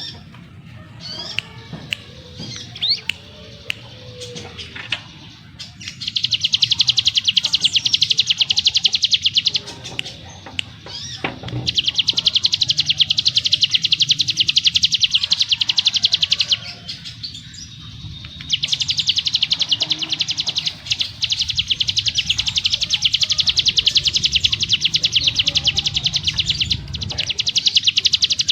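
Hill prinia (ciblek gunung) singing: a few short scattered chirps, then three long, very fast, dense high trills ('ngebren'), each lasting several seconds with short breaks between.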